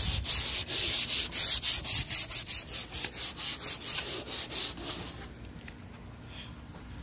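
Sandpaper rubbed by hand back and forth over a plastic headlight lens, about four strokes a second, growing softer near the end: hand sanding off the hazy surface to restore the lens.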